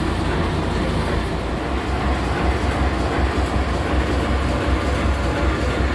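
A train running steadily along the line: a deep, even rumble with the noise of wheels on the track, holding at one level throughout.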